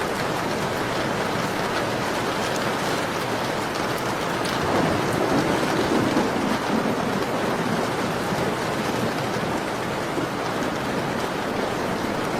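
Steady rain falling, mixed with faint crackling from a wood fire in a fireplace. The rain swells a little about five seconds in, then settles back.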